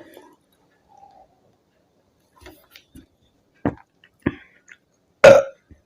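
Soda chugging and burping: two sharp throat clicks from swallowing, a little over half a second apart, then one short, loud burp about five seconds in.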